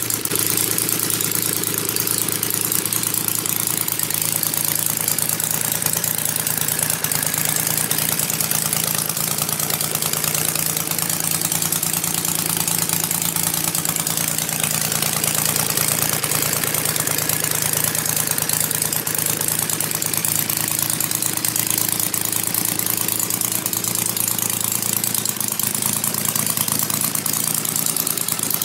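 Kolm 150cc inline three-cylinder model aircraft engine running steadily on its first run, turning the propeller of a large RC P-51 Mustang. The engine note dips slightly and recovers around the middle.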